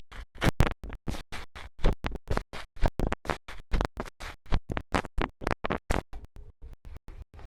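Slime being squeezed and pressed by hand, making a quick run of short sticky clicks and pops, about four or five a second.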